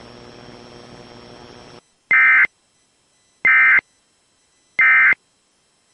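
Emergency Alert System end-of-message signal: three short identical bursts of the digital data tone, about 1.3 seconds apart. They follow a faint hiss from the broadcast channel that cuts off about two seconds in.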